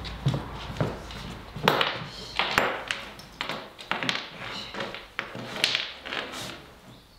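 Irregular taps and knocks with a few light clinks, about a dozen sharp strikes, from footsteps and a small dog moving about on a plywood floor.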